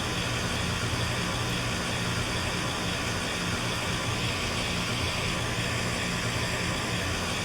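Outdoor central air heat pump units running steadily, with one unit in its defrost cycle: a low, even hum with a hiss over it.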